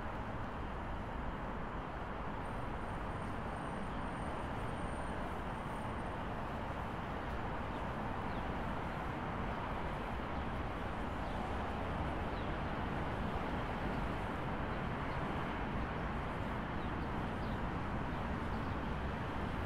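Steady hum of city traffic, an even rumble with no single vehicle standing out.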